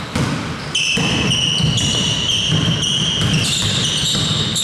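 Indoor basketball game in progress: the ball bouncing and players moving on the court, over gym noise. From about a second in, a high steady squeal holds on, shifting pitch in steps.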